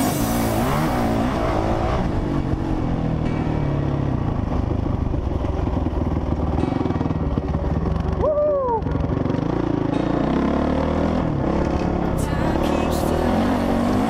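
Honda CRF450R single-cylinder four-stroke dirt bike engine heard from on board, its pitch rising and falling as the rider works the throttle. Steady wind and rough-track rattle run under it, and a brief falling tone comes about eight seconds in.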